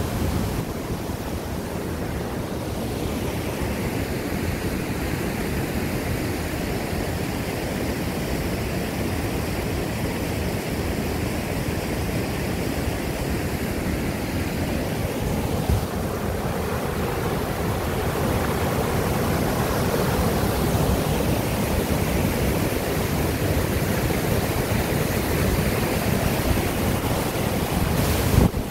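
Steady rush of a small waterfall pouring white water through a narrow rock channel, growing a little louder partway through. A short bump midway and a sharper one near the end.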